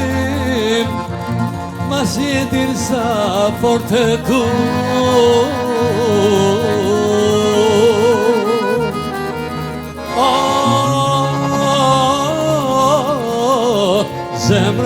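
Albanian folk song: a voice singing ornamented, wavering melody lines over traditional instrumental accompaniment, with a short break and a new phrase about ten seconds in.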